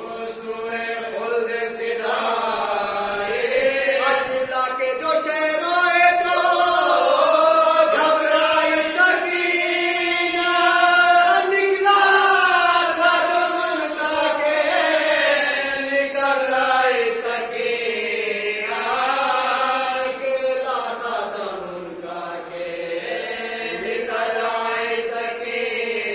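Group of men chanting a marsiya, the Urdu mourning elegy, a lead reciter's voice joined by several men singing with him. Long drawn-out notes slide slowly up and down with no pause.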